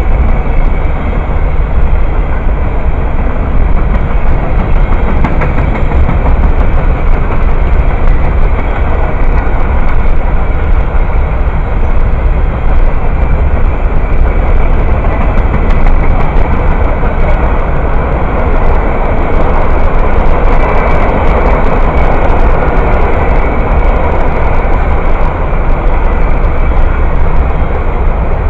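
Freight train cars rolling past close by: a loud, steady rumble of steel wheels on the rails. It swells for a few seconds past the middle, with clicking and rattling.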